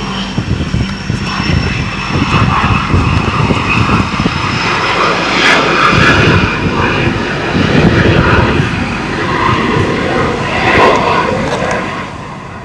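Aircraft engine running: a loud, uneven rushing noise with a thin, steady high whine through it.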